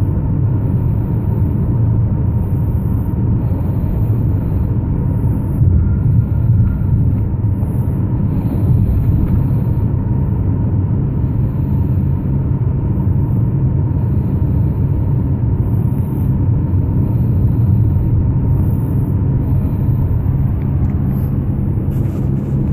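A steady low rumble, even in level, with no pauses or clear breathing rhythm standing out from it.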